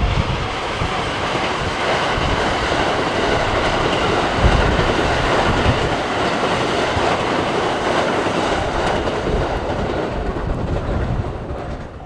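A train passing close by on the JR Hokuriku Main Line, with a loud rush of wheel-on-rail noise and heavy low thumps. The noise fades away near the end.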